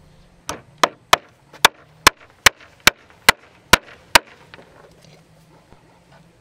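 A tool striking wood about ten times, sharp and evenly spaced at a little over two blows a second, stopping about four seconds in.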